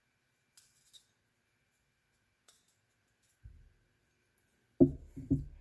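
A metal pick ticking faintly against the metal water pump housing as it works an O-ring out of its groove. Near the end comes a brief louder sound of three quick pulses.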